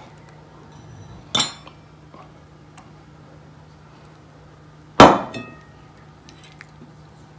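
Two sharp clinks of a metal spatula against a ceramic plate, about a second and a half in and again about five seconds in, the second louder and ringing briefly. A steady low hum runs underneath.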